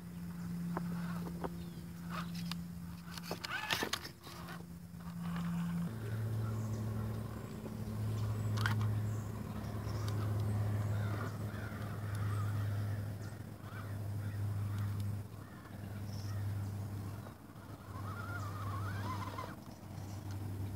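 Electric motor and gear drivetrain of a radio-controlled rock crawler whining at crawl speed, coming in and out in pulses of about a second as the throttle is worked. A few sharp clicks of the tyres and chassis knocking on stone.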